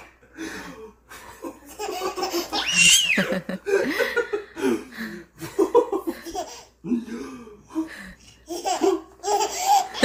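Baby laughing in repeated bouts, with a high falling squeal about three seconds in.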